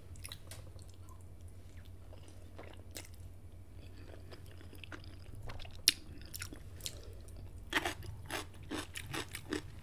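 Close-miked chewing of soft instant noodles, with small wet mouth clicks over a low steady hum; a sharp click comes about six seconds in, and the chewing sounds grow denser and louder near the end.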